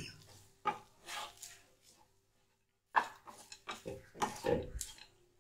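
Wooden spatula scraping and turning cooked rice in a pan, in short irregular strokes with a pause about two seconds in.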